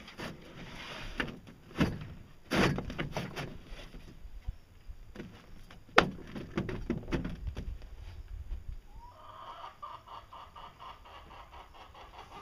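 Rustling, flexing and knocking as the thin fibreglass sheet of a boat hull is handled, with one sharp click about six seconds in. From about nine seconds in, a chicken clucks in a rapid, repeated run.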